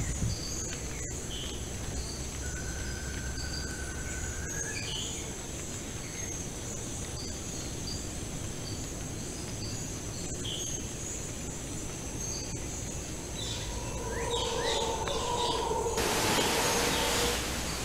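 Tropical forest ambience: a steady high insect drone with scattered bird chirps and whistles. A burst of hissing noise comes in near the end.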